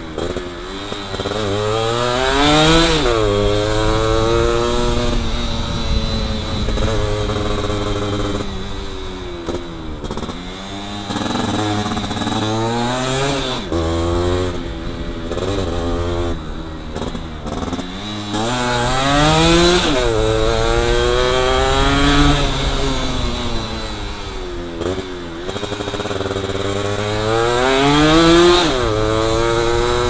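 Yamaha F1ZR's two-stroke single-cylinder engine revving up and dropping back again and again as it is ridden, its pitch climbing to a peak and falling sharply about four times.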